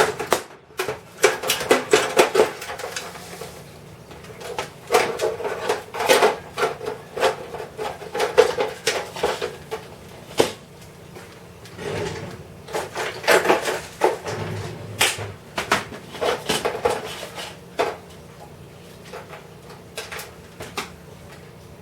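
Clock case parts and small hardware being handled and fitted together: clicks, knocks and metallic rattles in several bursts.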